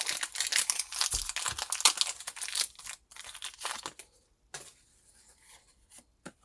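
Foil wrapper of a Pokémon TCG booster pack crinkling and tearing open: a dense crackle for about three seconds, then a few softer scattered rustles.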